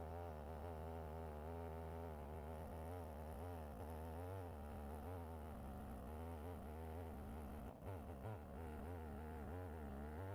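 Two-stroke Stihl 070-clone chainsaw engine running faintly and steadily, its pitch wavering slightly as it cuts through a cherry log on an Alaskan chainsaw mill.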